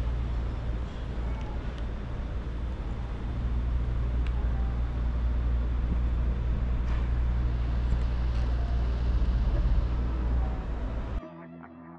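Steady low rumble of city background noise, like distant road traffic, with a few faint clicks and taps. It drops away suddenly near the end.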